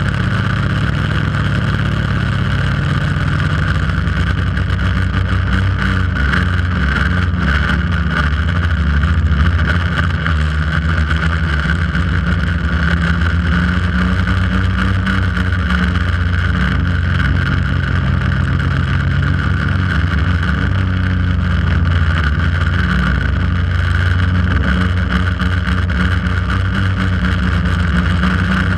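Quadcopter's electric motors and propellers buzzing loudly and steadily in flight, heard from on board.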